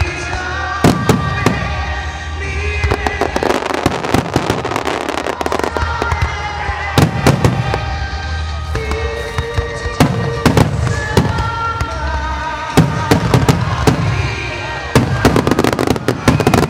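Display fireworks shells bursting: deep booms every couple of seconds, with clusters of sharp cracks and crackling between them. Music with held tones plays along.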